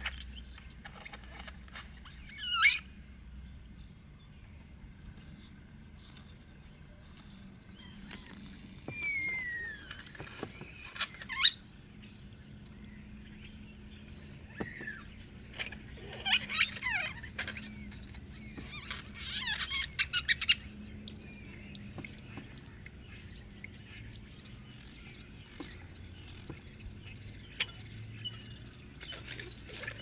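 Great-tailed grackle calls: scattered sharp chirps and falling whistles, with loud single calls near the start and about eleven seconds in, and quick runs of calls near the middle.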